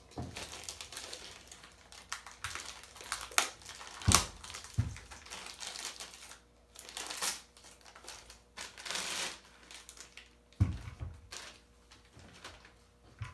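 Plastic packaging crinkling and rustling as a cordless angle grinder and its parts are handled, with a few sharp knocks and clicks of hard plastic and metal parts being set down or fitted.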